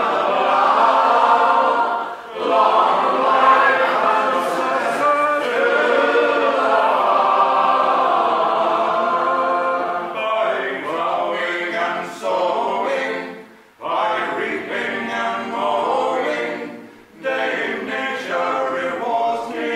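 A men's group singing an unaccompanied folk song in harmony, a full sustained chorus for the first ten seconds or so, then shorter phrases with brief breaks between them.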